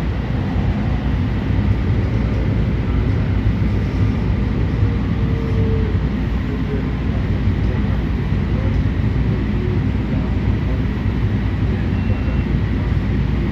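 Elevated passenger train running at a steady speed, heard from aboard: a continuous low rumble of wheels and running gear.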